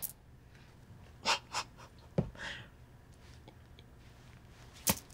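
A woman's short breaths and soft exhales while she pauses, five brief sounds spread over a few seconds, with a short low thump about two seconds in.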